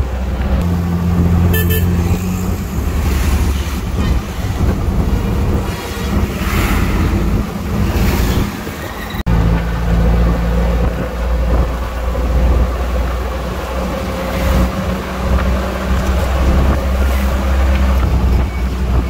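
Motor vehicle running on a road: a steady, loud low rumble that dips briefly about nine seconds in.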